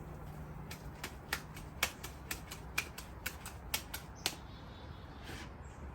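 Metal kebab skewers clicking and clinking as minced beef is worked onto them: about a dozen sharp, uneven clicks over three and a half seconds.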